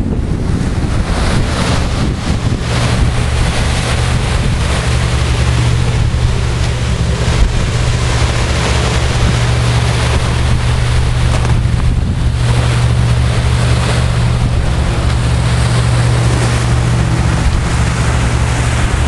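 Wind buffeting the microphone over the steady rush of a square-rigged sailing ship's bow wave breaking through the sea, with a heavy low rumble.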